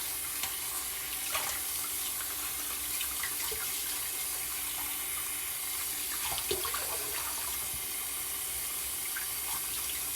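Tap running into a sink as a badger-hair shaving brush is rinsed out under it, with small irregular splashes over the steady flow of water.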